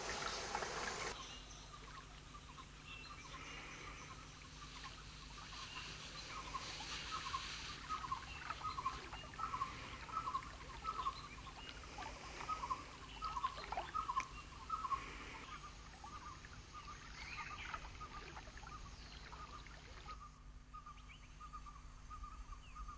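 Hiss of running water that cuts off about a second in, then quiet outdoor ambience in which a bird repeats short chirps in quick series over a faint high hiss.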